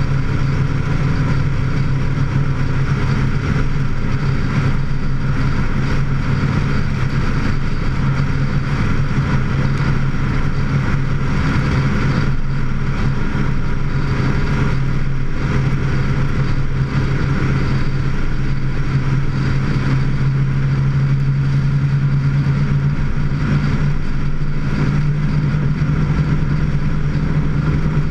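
Vehicle engine running steadily at road speed, heard through the hood it is mounted on, with a steady hum over wind and road noise; the engine note rises slightly near the end.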